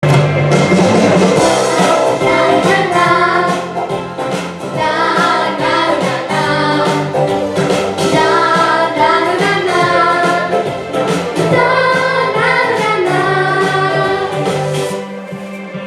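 Music: a melody carried over a sustained low backing, with no words sung.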